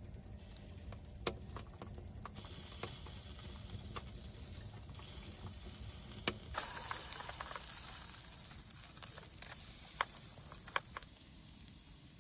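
Food sizzling in a hot pan, with scattered clicks and taps of utensils. The sizzle starts abruptly a couple of seconds in, swells loudly about halfway through, and thins out near the end.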